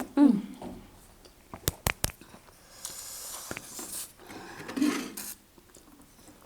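Close-up eating of spicy noodles: wet slurping and chewing noises, with a few sharp clicks of a utensil against a bowl about two seconds in.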